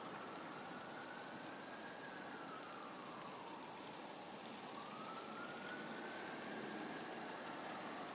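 A siren wailing, its pitch rising and falling slowly, about one sweep every five seconds, over a steady hiss of rain.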